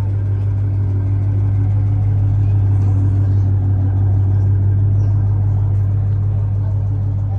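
Hot rod engine idling steadily: a loud, even, deep rumble.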